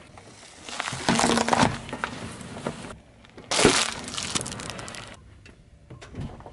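Car tyre rolling over and crushing small objects on asphalt: a crunching stretch about a second in, then a single sharp crack a little past halfway.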